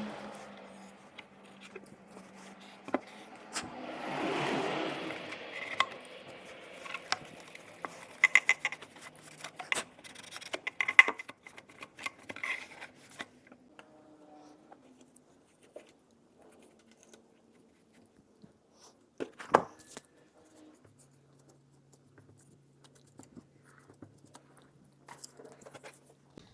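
Scattered light clicks, taps and rubbing of a plastic car instrument cluster being handled and wiped clean, with a louder rustle about four seconds in.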